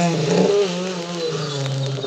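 Race car engine revving hard under acceleration, its pitch climbing and then dropping twice as it shifts up through the gears.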